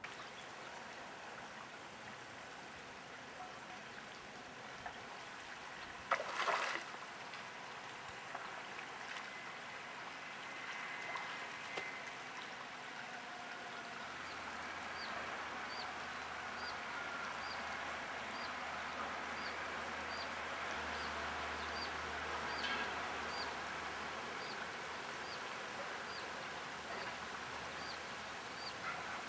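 Shallow stream flowing, a steady rush of water. A brief louder burst of noise about six seconds in, and in the second half a faint high tick repeated about once a second.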